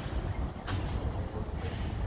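City bus engine running as the bus turns and approaches slowly, a steady low rumble, with one sharp click about two-thirds of a second in.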